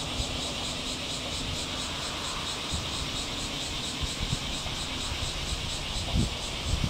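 Steady outdoor hiss with a fast, even, high-pitched pulsing running through it. Low, irregular buffeting of wind on the microphone comes in near the end.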